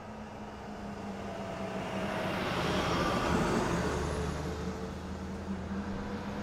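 Road traffic: a vehicle passes close by, its engine and tyre noise swelling to a peak about three seconds in and then fading, over a steady low engine hum.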